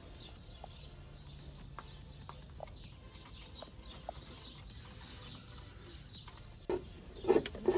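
Faint birds chirping in the background, over soft scattered clicks of hands working a wire into a truck's engine bay, with a couple of louder knocks near the end.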